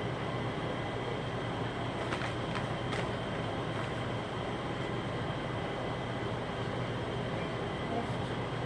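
Steady mechanical hum of a running kitchen appliance, with a few faint light clicks about two to three seconds in.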